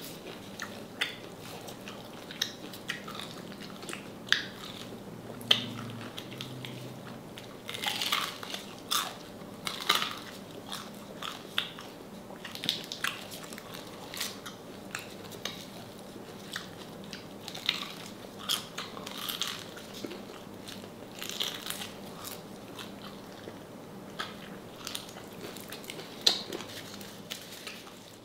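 Mouth-close crunching and chewing of crispy deep-fried salted pork knuckle skin: sharp, irregular crackling bites every second or so.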